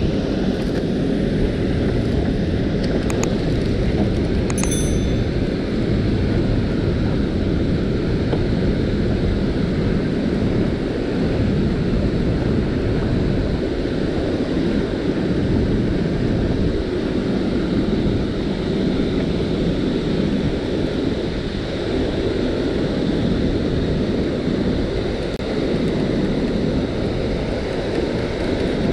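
Steady rushing of floodwater pouring through the dam's open spillway gates, with wind buffeting the action camera's microphone.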